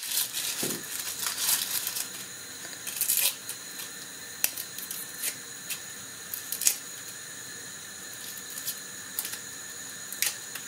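Scattered light clicks, taps and rustling of pickling ingredients, garlic cloves among them, being handled and dropped into a vessel, with a soft thump a little under a second in.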